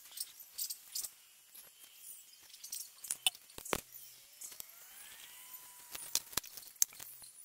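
Scattered light clicks and knocks of footsteps and tools being handled on a concrete slab, with one sharper knock a little before halfway. A faint rising tone is heard between about four and six seconds in.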